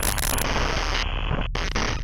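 Static-like noise effect over a heavy low rumble, its top end cut off in abrupt steps, breaking off briefly about a second and a half in and coming back for a last short burst.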